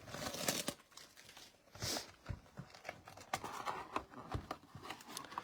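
Crinkling and tearing of plastic wrap and cardboard as a sealed trading card hobby box is opened, with scattered handling clicks and one louder rip about two seconds in.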